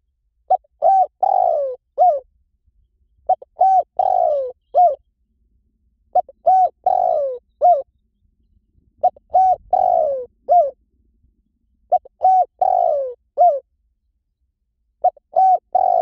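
Spotted dove cooing: the same phrase repeats about every three seconds, six times. Each phrase is two short coos, a long falling coo and a short closing coo.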